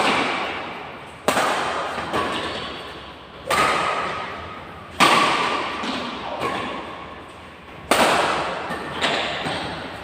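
Badminton rackets hitting a shuttlecock back and forth in a doubles rally: a string of sharp smacks about one to one and a half seconds apart, some harder than others. Each smack rings on in an echoing hall.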